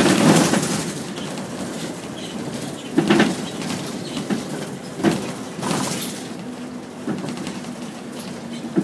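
Inside a moving route bus: a steady engine and road drone, broken by several short loud rattles and knocks from the cabin, the loudest right at the start.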